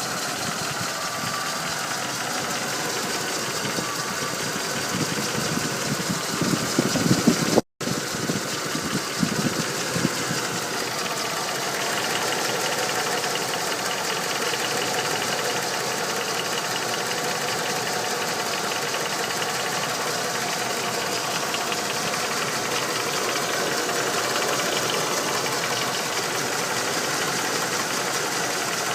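Ford 5.0 L Windsor V8 in a Lincoln Town Car running, with a rapid, steady ticking knock that the owner wonders is engine knock. It gets louder and rougher for a couple of seconds about a third of the way in, cuts out for an instant, then settles back to a steady run.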